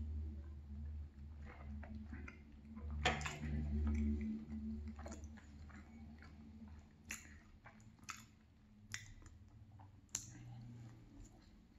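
Close-miked drinking and eating: swallowing gulps of chocolate milk from a glass, with a louder knock about three seconds in, then chewing moist cake with sharp wet mouth clicks about once a second near the end.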